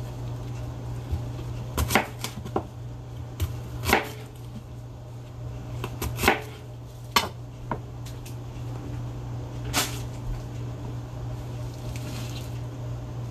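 Chef's knife cutting bell peppers on a plastic cutting board: about ten sharp, irregular knocks of the blade against the board, over a steady low hum.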